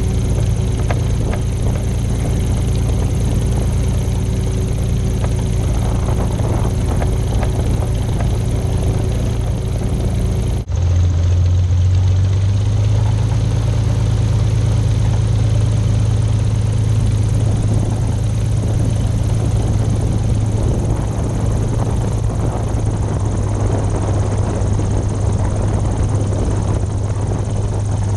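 XtremeAir XA42's Lycoming 580 six-cylinder engine and propeller running steadily at taxi power, a low, even drone. About ten seconds in the sound drops out for a moment, then carries on just as steadily with a slightly different low note.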